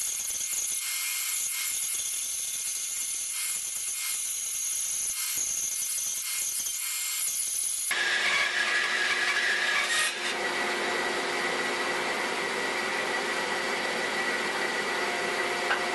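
Delta 14-inch bandsaw resawing a board of ash: a steady high hiss of the blade cutting. About eight seconds in the cut finishes, and the saw runs on freely with a steady hum.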